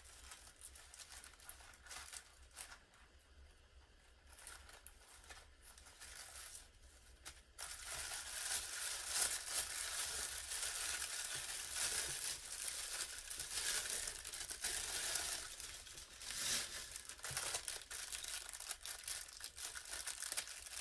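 Silver plastic mailer bag being pulled open and crumpled by hand, then a clear plastic bag being handled. There is soft intermittent tearing and crackling for the first several seconds, then loud, continuous crinkling from about a third of the way in.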